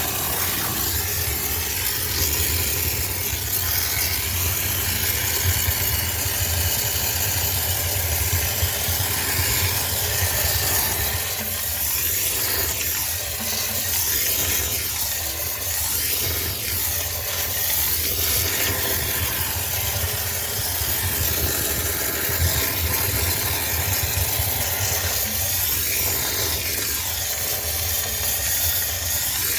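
High-pressure steam cleaner running: a steady low machine hum under a continuous hiss of steam from the nozzle, sterilizing a sneaker washing machine.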